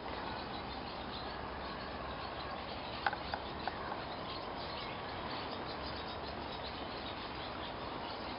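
Outdoor ambience with faint, scattered bird chirps over a steady background hiss, and one sharper click about three seconds in.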